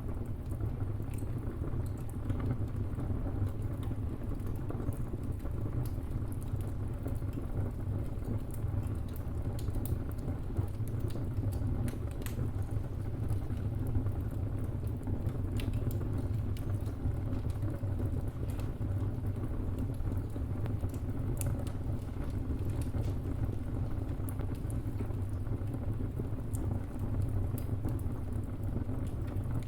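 Wood fire burning in a fireplace: a steady low rumble under frequent small crackles and occasional sharper pops of burning timber.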